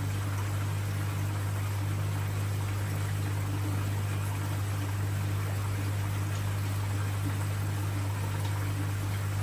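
Saltwater aquarium's water circulation: a steady trickle and splash of moving water over a constant low hum from the tank's pump.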